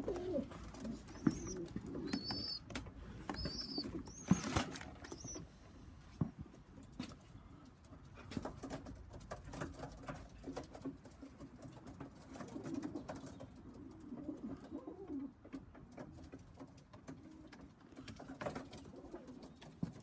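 Pigeons cooing in a loft, low wavering coos carrying on throughout, with a few short high squeaks about one to four seconds in and a sharp knock at about four seconds.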